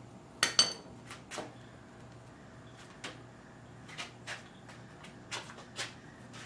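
Metal engine parts being handled and set against an engine block: two sharp clanks with a brief metallic ring about half a second in, then scattered lighter clicks and taps. A faint low hum sits underneath.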